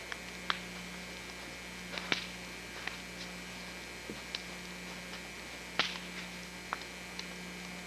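A steady low hum with about ten short, sharp clicks and pops scattered irregularly across it.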